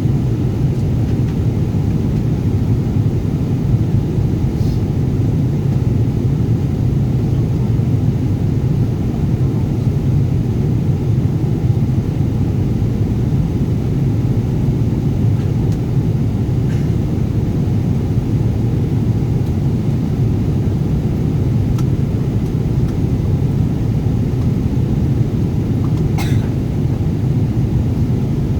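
Steady low rumble of a Boeing 777 airliner cabin, the even drone of engines and air, with a few faint clicks, the clearest near the end.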